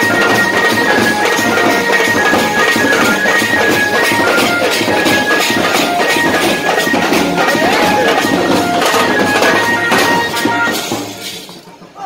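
A band of large double-headed drums beaten in a fast, dense rhythm, with a shrill, pipe-like melody over the drumming. The music drops away about eleven seconds in, then starts to pick up again.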